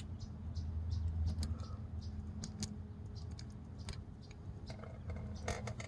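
Light, irregular clicks and taps of small metal engine parts being handled as a spring-loaded oil pump chain tensioner is eased off, over a steady low hum.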